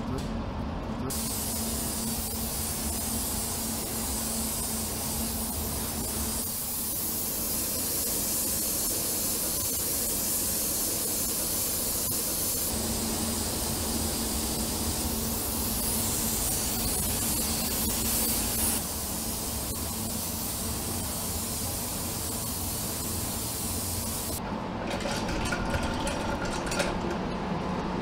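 Compressed-air paint spray gun hissing continuously as paint is sprayed onto an alloy wheel, over a steady low hum. The hiss shifts in strength a couple of times, then stops about 24 seconds in, followed by light clicks and knocks.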